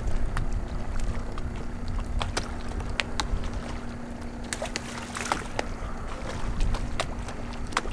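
Rumbling wind-and-water noise over the water, with a steady low hum running underneath and scattered sharp clicks.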